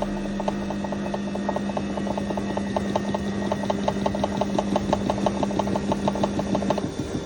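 IFB front-load washing machine rattling during its spin, a rapid, even clicking of about eight knocks a second over a steady motor hum that cuts out just before the end. This is the 'khad-khad' spin noise, which is often caused by worn bearings or a drum fault.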